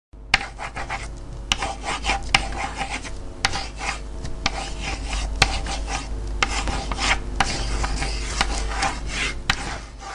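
Pen scratching across paper in quick strokes as numbers are drawn, with occasional sharp clicks, over a steady low hum.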